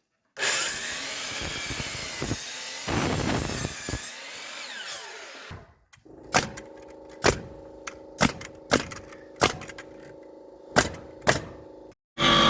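A power saw cutting wood for about five seconds, then, after a break, a series of sharp knocks at uneven spacing, typical of hammering or tapping on wood.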